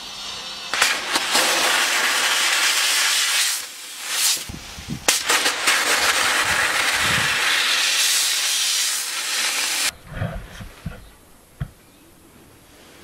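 Pressure-pot sandblaster blasting abrasive grit onto a steel moped frame: a loud, rushing hiss in two long bursts with a short break about four seconds in, cutting off suddenly about ten seconds in, followed by a few low knocks.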